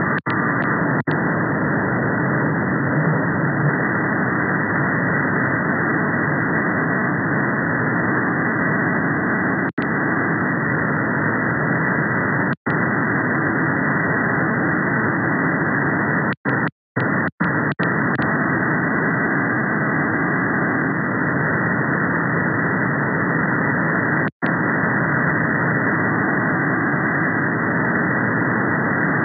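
Steady hiss from a VHF communications receiver in upper-sideband mode tuned to 38.9 MHz, cut off sharply at about 2 kHz. No clear tone stands out. The sound cuts out briefly several times, in a cluster around the middle.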